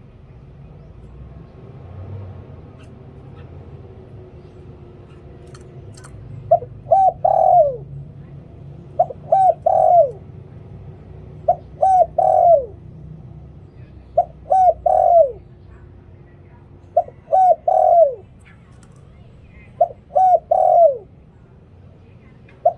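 Spotted dove cooing. After about six seconds of faint background, it calls a repeated phrase about every two and a half seconds, six times: a short note, a quick pair of notes, then a longer falling note.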